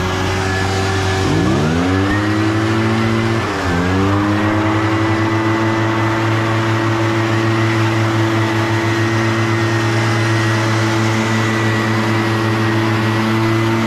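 Echo gas leaf blower running, its two-stroke engine dropping in pitch and climbing back twice in the first few seconds as the throttle is eased and reopened, then held steady at high revs.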